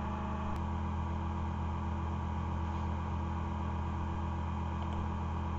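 Steady low background hum with several faint constant tones over it, and one faint click about half a second in.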